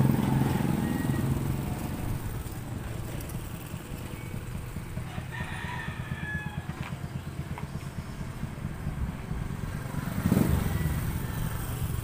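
A rooster crows once, about five seconds in, over the low rumble of an engine that fades away in the first two seconds.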